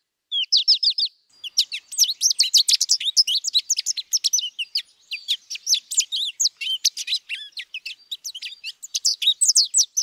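American goldfinch song: a long, varied run of rapid high twitters and warbles. It opens with two short bursts of quick repeated notes in the first second, then carries on as a continuous tumbling jumble of notes.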